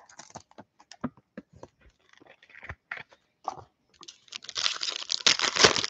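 Foil wrapper of a Panini Optic football card pack crinkling as it is handled, then torn open with a long, loud rip starting about four seconds in.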